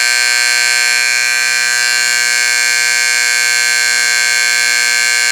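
Federal Signal Vibratone AC vibrating horn sounding continuously on a pulled alarm: a loud, steady, unbroken horn tone rich in overtones.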